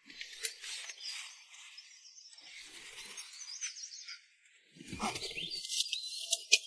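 Outdoor ambience with birds chirping, and a brief rustle about five seconds in.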